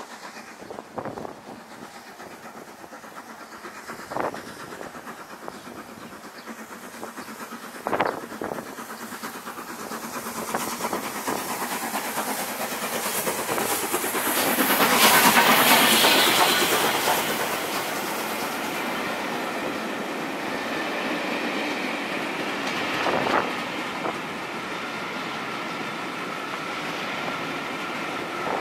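Steam locomotive approaching and passing close by, hauling a train of coaches. The noise builds to its loudest as the engine goes past about halfway through, then settles into the steady rolling of the coaches' wheels on the rails.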